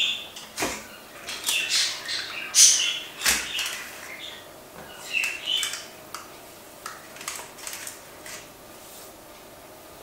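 Paper baking cups crinkling as they are handled and set down on a metal baking tray, with two sharp knocks, about a second in and about three seconds in, and a few light ticks later on.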